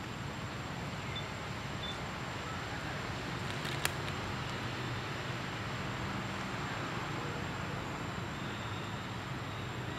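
Steady outdoor background noise: a low hum and hiss with a thin, steady high tone, and a single sharp click about four seconds in.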